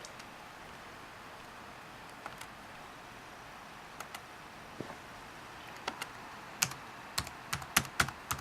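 Typing on a ThinkPad T61 laptop keyboard: a few isolated key presses, then a quicker run of louder keystrokes for the last couple of seconds, over a steady faint hiss.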